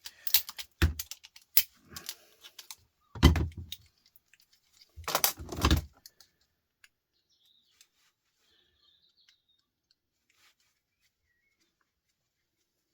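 Metal parts being handled on a workbench: a run of sharp clanks, clicks and rattles for about six seconds, loudest twice near the middle, then only a few faint ticks.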